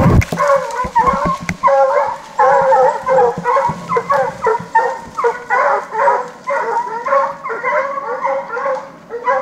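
A hunting hound barks over and over, about two to three barks a second, while trailing a bear. A short brushing rustle comes right at the start.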